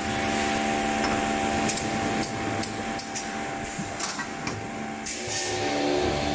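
Automatic thermoforming tray fill-seal-cut packing machine running: a steady machine hum with repeated sharp clicks and knocks from its moving parts.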